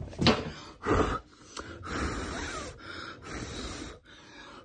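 Someone blowing hard by mouth across a wooden chair seat to clear off scraped stripper residue: two strong puffs about a second apart near the start, then softer noise for a second or two.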